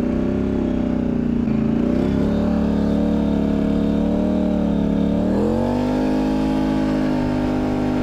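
Polaris Sportsman 1000 XP ATV's twin-cylinder engine running loud through a homemade muffler while being driven. The engine note dips and climbs twice as the throttle changes, settling at a higher steady pitch about six seconds in.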